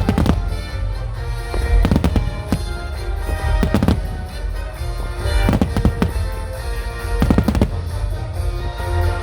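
Fireworks finale: aerial shells bursting one after another, sharp cracks about every second or two over a continuous deep booming rumble, with music playing throughout.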